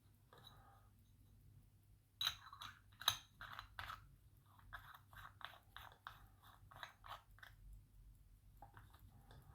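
Small crisp metal clicks and scrapes from the case back of a 1920 B.W. Raymond railway pocket watch being fitted back onto the case, starting about two seconds in and coming roughly twice a second.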